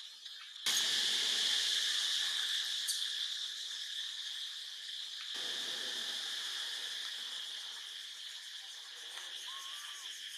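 Steady, high-pitched insect chorus from the forest. It cuts in suddenly less than a second in and shifts in tone about halfway through.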